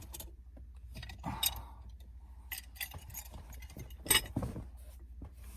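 Scattered light metallic clicks and clinks as a C-clamp is worked on a car's shift knob, a louder clink about a second and a half in and another about four seconds in.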